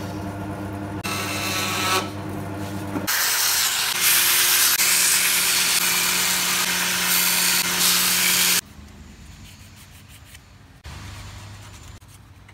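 For about three seconds, a band saw runs with a steady motor hum as it cuts a black sheet. Then a belt grinder runs loud and hissing as a small piece is pressed against the belt, and it cuts off suddenly at about eight and a half seconds. After that there are only much quieter handling sounds.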